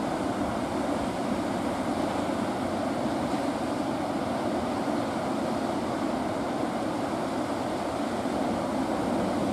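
Steady wash of ocean surf breaking along a beach, with wind.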